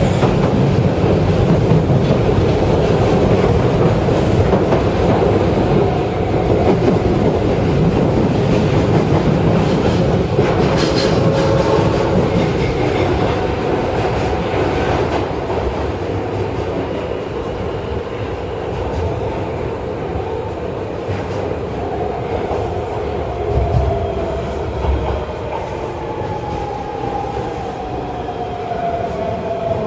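Osaka Municipal Subway Midosuji Line 21 series train running, heard from inside the car: a steady rumble of wheels on rail with clatter over the rail joints. Over the last several seconds a motor whine falls slowly in pitch as the train slows for the next station.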